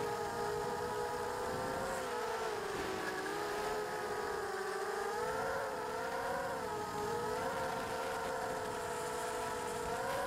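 FPV racing drone's motors and propellers whining in fast, low flight, heard through the onboard camera. Several tones sound together; their pitch dips about three seconds in and then wavers up and down with the throttle.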